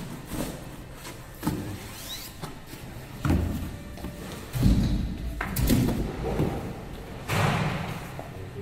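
Packing being handled: a cardboard box is lifted out of a foam packing block and set on a workbench, with about half a dozen dull thumps and knocks and foam rubbing in between.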